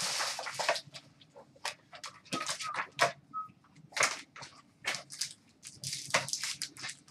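Sealed trading-card boxes being unwrapped and opened by hand: crinkling rips of plastic wrap and cardboard, with taps and rustles as the boxes and packs are handled. The longest rip comes in the first second.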